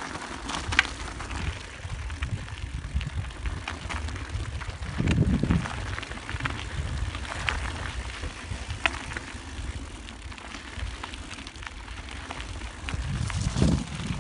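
Handcycle rolling along a trail: a steady low rumble with scattered clicks and rattles, swelling louder twice, about five seconds in and near the end.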